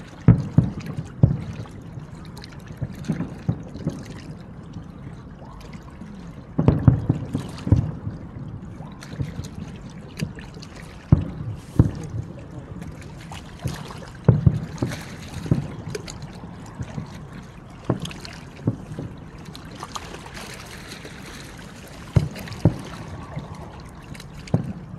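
Aerial fireworks shells bursting far off, a string of booms at irregular intervals, some coming in quick clusters of two or three.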